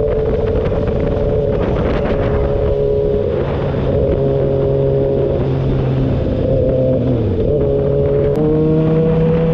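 Kawasaki ZX-6R's inline-four engine running at steady cruising revs, heard from on the bike with wind and road noise. Near the end the engine note drops away briefly and comes back slightly higher.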